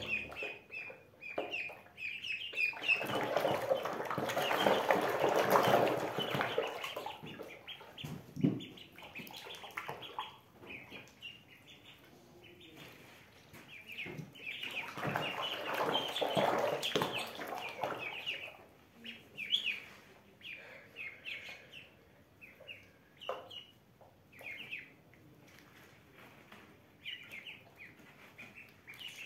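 Ducklings peeping over and over in short high calls while they paddle in a plastic basin of water, with two stretches of splashing, a few seconds in and again about halfway through.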